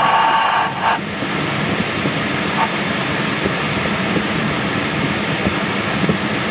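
Steady rush of airflow around a Schempp-Hirth Duo Discus glider, heard inside the cockpit under the canopy. A brief higher-pitched sound ends about a second in.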